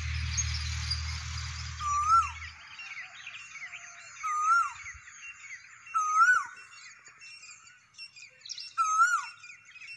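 A cuckoo calling four times, each a clear whistled note that rises and then drops sharply, every two to three seconds. Smaller birds chirp and twitter around it. A low rumble fades out in the first few seconds.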